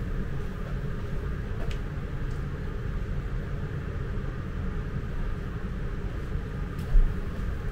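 Steady low rumble with a light hiss, and one dull low thump near the end.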